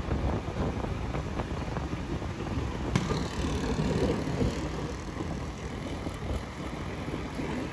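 Wind buffeting the microphone over the steady rumble of a moving vehicle and street traffic, with one sharp click about three seconds in.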